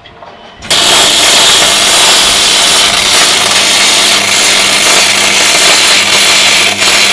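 MIG welder striking an arc on aluminium about 0.7 s in and welding on with a loud, hissing crackle and a low steady hum beneath, dipping briefly near the end. The arc is throwing a lot of spatter and sounds wrong to the welder: the machine is doing funny things again and the weld is poor.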